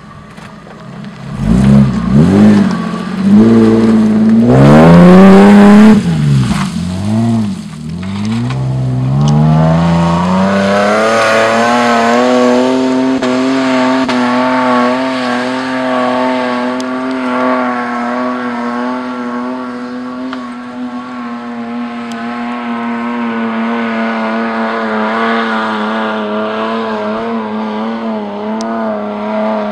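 Toyota Land Cruiser 80-series engine and exhaust revving up and down several times, then held high in a steady drone as the 4x4 climbs a steep loose-gravel slope under load.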